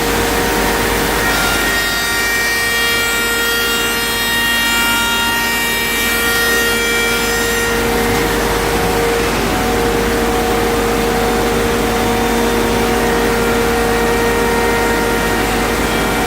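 CNC router spindle running steadily and cutting through wooden stair treads, a constant whine over the rushing noise of the cut, its higher tones shifting about eight seconds in.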